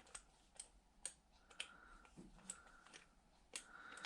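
Faint, irregular small clicks and taps of a hand tool working at a generator carburetor's main jet, which is stuck and won't unscrew.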